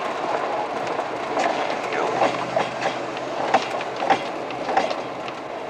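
Four-wheel-drive vehicle heard from inside the cabin, rolling over a snow- and slush-covered road: a steady rumble of road noise with scattered irregular clicks and knocks.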